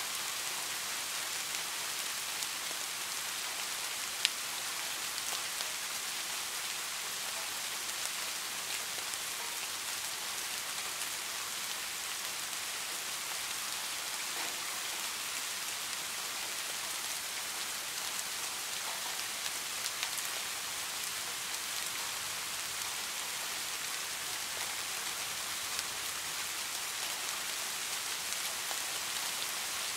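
Steady rain falling, an even hiss with now and then a single drop tick standing out; the sharpest tick comes about four seconds in.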